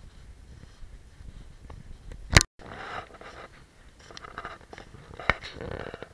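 Irregular crunching footsteps in snow, close to the microphone. A sharp click with a brief dropout to silence comes about two and a half seconds in, and another single click a little after five seconds.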